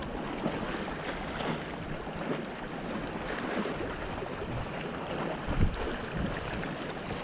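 Wind buffeting the microphone over small waves washing against shoreline rocks, with a brief low thump about five and a half seconds in.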